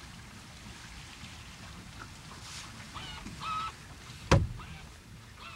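Wind and water rushing past a sailboat under way, with a few short squeaky honk-like calls about three seconds in and a single sharp knock just after four seconds.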